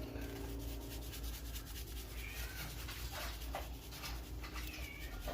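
A household pet giving short, high, wavering cries, twice, with a few light scraping sounds between them over a steady low hum.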